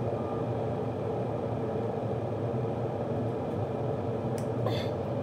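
Glass electric kettle heating water, a steady rumble and hiss as small bubbles form on its heating plate before the boil. A couple of brief rustles near the end.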